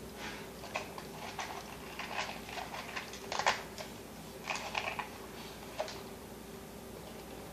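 Irregular clicks and taps of a plastic toddler snack cup being handled and knocked on a tile floor, the loudest knock about three and a half seconds in, over a faint steady appliance hum.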